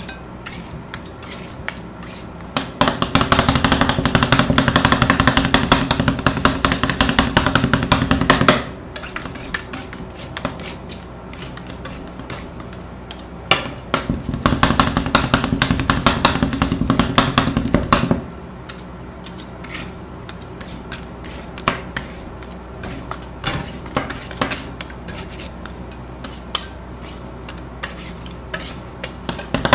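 Two metal spatulas scraping and tapping on a steel ice-cream-roll cold plate as milk ice cream mix is chopped and worked while it freezes. Two long stretches of fast, hard chopping, the first starting about three seconds in and lasting about six seconds, the second in the middle for about four seconds, with lighter scraping and scattered clicks between.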